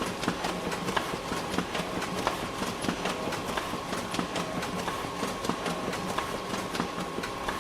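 Photocopier running: a steady hum and whir with rapid, irregular mechanical clicking, several clicks a second, as it feeds and copies.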